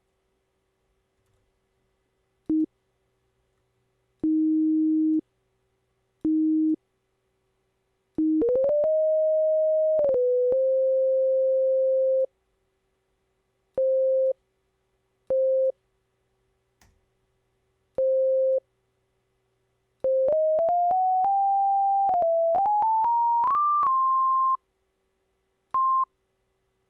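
Pure sine-wave tone from Logic Pro X's Sampler, played as short blips and longer held notes at changing pitches, each starting and stopping with a click. It starts low, slides up about eight seconds in, and from about twenty seconds climbs in steps to a high pitch near the end.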